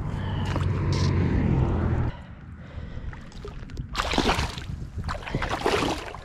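A low, steady rumble that cuts off suddenly about two seconds in, then a northern pike splashing and thrashing in shallow water at the bank as it is released, with a cluster of splashes about four seconds in.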